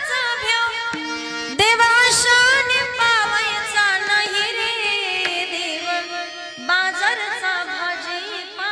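A woman singing a Marathi devotional abhang in long, ornamented, sliding melodic lines, over steady held notes of an accompanying instrument.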